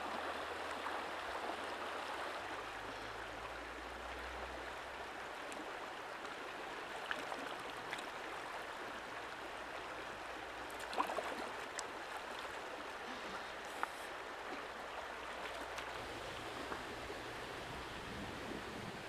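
Shallow stream rushing steadily over rocks, with a few brief clicks and knocks here and there.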